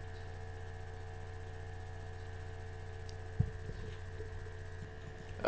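Steady low electrical hum and hiss of the recording setup, with a soft thump about three and a half seconds in.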